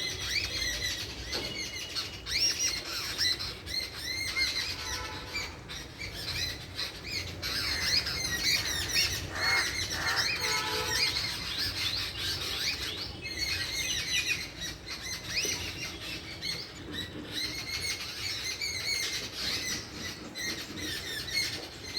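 Many small birds chirping and calling over one another, a dense, continuous chatter of short notes that slide up and down in pitch.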